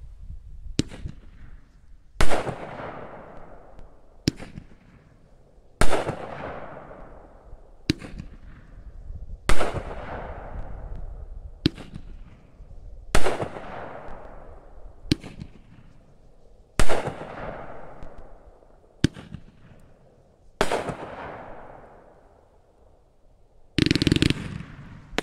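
Raccoon Fireworks Cluster Bomb, a 40-shot 500g consumer cake of willows and horsetails, firing one shot every second and a half to two seconds, each sharp boom trailing off in echo. Near the end the shots come in a faster, denser run.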